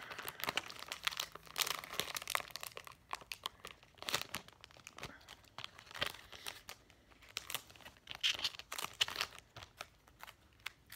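Plastic wrapping and card sleeves crinkling and tearing in irregular bursts as a pack of trading cards is opened, with sleeved cards being handled.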